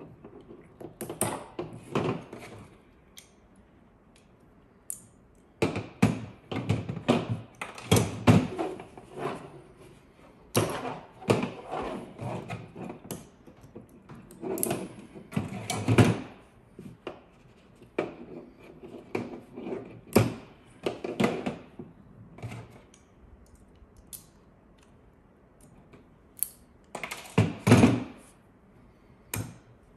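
Hand cutters snipping and prying spot-welded nickel strip off 18650 lithium-ion cells, with irregular clicks, snaps and knocks of metal and cells being handled on a table. The sounds come in scattered clusters with short quiet gaps between them.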